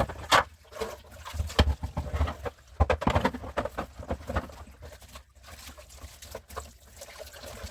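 Irregular knocks, clicks and rustling of groceries and containers being handled and put away, busiest in the first half and quieter toward the end.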